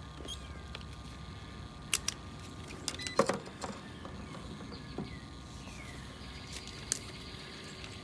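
Scattered sharp clicks and small handling rattles as test leads are plugged into a Fieldpiece SC640 clamp meter and handled for a capacitor test, over a steady low hum.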